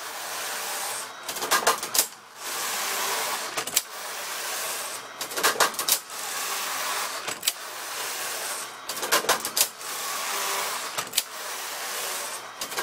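E-8000 double-bed electronic knitting machine knitting double jacquard as its carriage is pushed back and forth across the needle beds. Each pass is a steady sliding hiss of a bit over a second, ending in a quick cluster of clicks as the carriage reaches the end of the row; about six passes.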